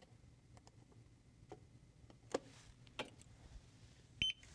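A few faint, scattered computer mouse clicks, and a short high electronic beep near the end.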